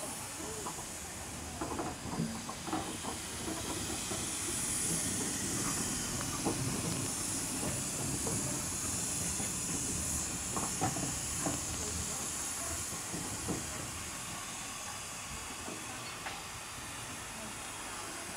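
15-inch gauge steam locomotive hissing steam, a steady high hiss that is strongest through the middle, over a low rumble with scattered light knocks.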